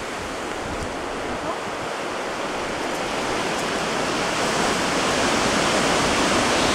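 Strong wind rushing through the trees, a steady noise that swells gradually and is loudest near the end.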